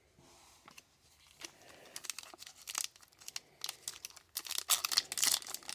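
Packaging of a hockey card pack being crinkled and torn open by hand: quiet rustling at first, then louder crackling tears near the end.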